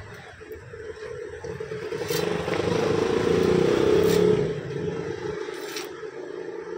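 Fish being scaled against the edge of an upright boti blade: rapid rasping scraping strokes, loudest in the middle, over a steady background hum.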